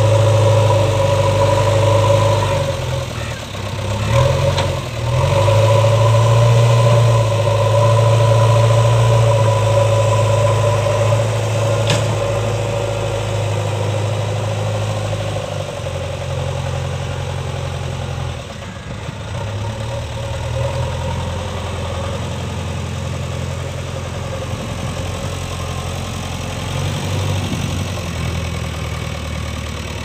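JCB 3DX backhoe loader's diesel engine running steadily while the front bucket pushes soil, dipping briefly a few seconds in and running quieter from about halfway.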